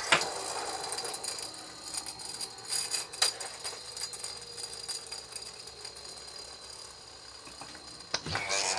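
An older Wiz-z-z-er friction top spinning on a plastic tray: a thin steady high whine with a light rattle and occasional clicks from its tip skittering on the surface, a lower hum sinking slowly in pitch as it runs down. Near the end a louder rasping noise starts.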